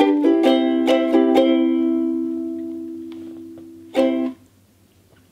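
Ukulele strummed to end a song: a few chord strums, then one chord left to ring and fade for a couple of seconds, and a last sharp strum about four seconds in that is damped almost at once.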